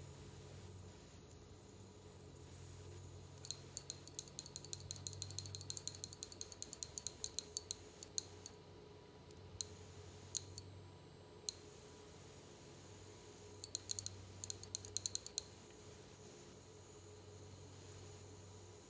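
Piezo disc on an ultrasonic driver, tuned down into the audible range, giving a loud, piercing single high tone. The pitch dips slightly, then steps up as the frequency is changed. It stutters on and off rapidly in two stretches, cuts out twice for about a second, and climbs higher again near the end.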